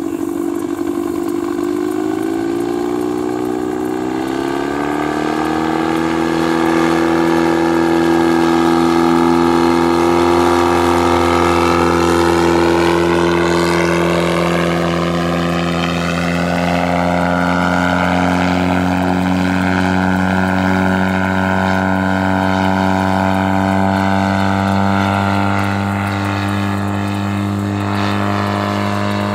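Bensen gyroplane's McCulloch two-stroke engine, fitted with custom mufflers, running at flight power as it passes overhead, with its pusher propeller. The engine note rises over the first few seconds, then holds steady and loud, loudest about a third of the way in.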